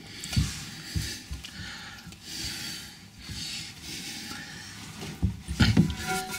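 A wing nut being hand-tightened on a toilet tank-to-bowl bolt: soft rubbing and rustling of fingers against the porcelain and hardware, with a few low bumps, the loudest near the end.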